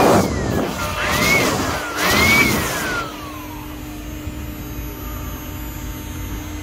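Handheld electric power tool run in short bursts: its motor whine swells up about one and two seconds in, with cutting noise under it, then winds down slowly after release. A steady low hum remains.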